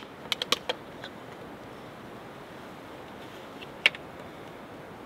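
Sharp clicks from a trail camera being handled on a tree: a quick run of four or five about half a second in, and one more near four seconds, over a steady background hiss.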